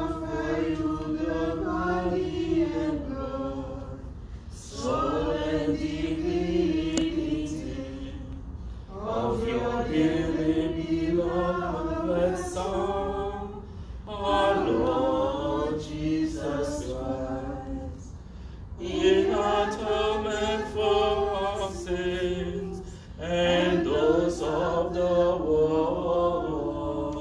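Voices singing a slow prayer chant in six phrases of about four seconds each, with short breaks between them.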